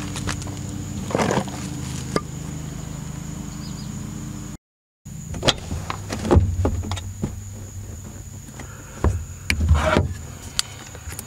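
Irregular metal knocks, clinks and scrapes from hand tools and suspension parts being handled during rear shock absorber removal on a car, over a steady low hum. The sound cuts out for about half a second near the middle.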